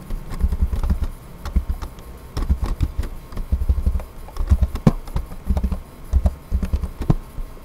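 Computer keyboard keys clicking in irregular runs as text is typed and edited, with dull low thuds under the keystrokes.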